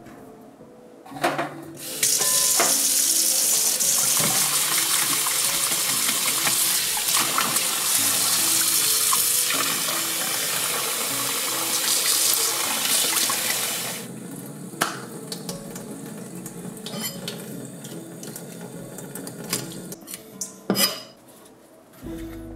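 Kitchen tap running into a stainless steel bowl in the sink as a whole seabream is rinsed and rubbed by hand; the water comes on about two seconds in and stops about twelve seconds later. After that come lighter handling sounds, with scattered knocks and clicks as the fish is laid on a cutting board.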